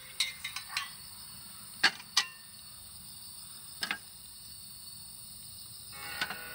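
Tableware clinking: a quick run of small clicks at the start, two loud sharp clinks about two seconds in and one more near four seconds, over a faint steady hiss. Music comes in near the end.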